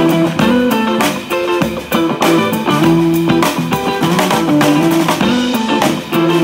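Electric guitar playing a riff over a small drum kit, with regular snare and kick hits and cymbal. Instrumental, with no singing.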